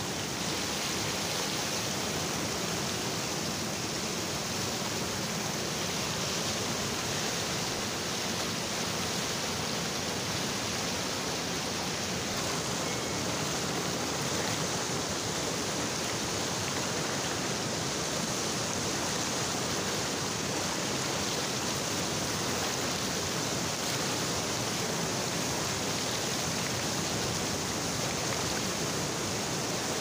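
A fast mountain river running through whitewater rapids: a steady, unbroken rush of churning water.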